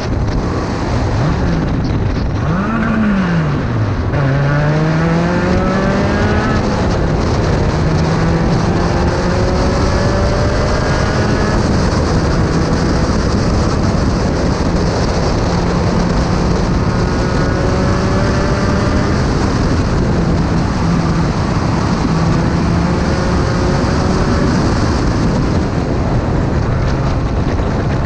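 In-car sound of a Spec Racer Ford Gen3 at speed: its 1.6-litre Ford four-cylinder engine under heavy wind rush. The engine note swoops up and drops sharply about three seconds in, then climbs in a series of rising runs, each breaking off and starting again lower as it accelerates through the gears.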